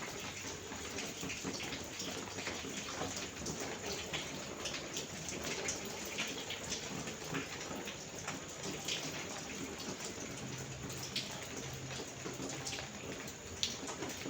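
Heavy monsoon rain falling steadily, with many separate drops striking close by.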